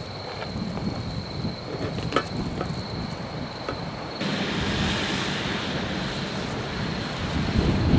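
Outdoor ambience: a steady high insect trill over a low rumble of wind. About halfway through a steady hiss comes in suddenly and the trill drops out, returning near the end.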